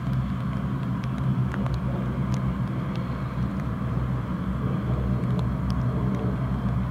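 Bombardier Dash 8 Q400's two turboprop engines running at low power as the airliner taxis and turns onto the runway: a steady propeller hum with a low, even tone.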